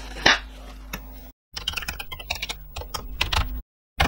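Typing on a Commodore 64C keyboard: a quick run of key clicks lasting about two seconds, over a low electrical hum. A single sharp click comes shortly before the typing.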